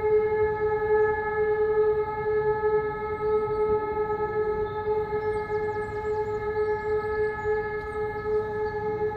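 Civil-defence air-raid siren sounding the all-clear (Entwarnung): one steady, unbroken tone held at constant pitch, with no rise or fall.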